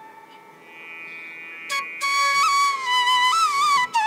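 Background instrumental music: a melody of long held notes with small slides in pitch, quiet for about the first second and a half, then fuller.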